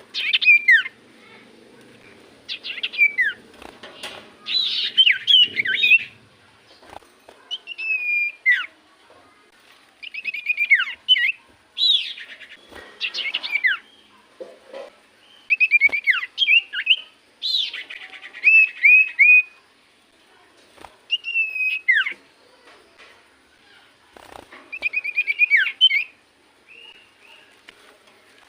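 Common iora (cipoh) singing: short, repeated phrases of clear whistled notes that sweep down in pitch, mixed with quick chattering runs, a new phrase every second or two.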